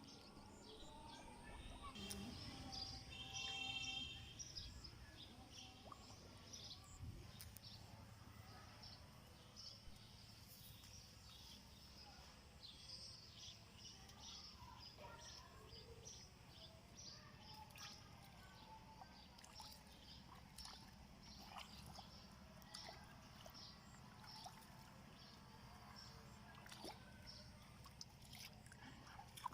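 Faint outdoor ambience: scattered short high clicks and chirps over a low steady hum, a little louder about two to four seconds in.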